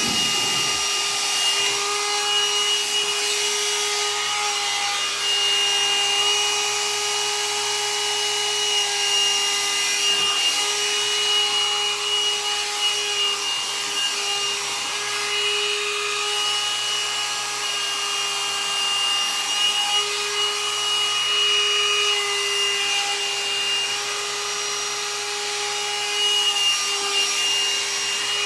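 Hot-air dryer brush running steadily: its motor and fan give a constant whine of several fixed tones over a rush of blowing air.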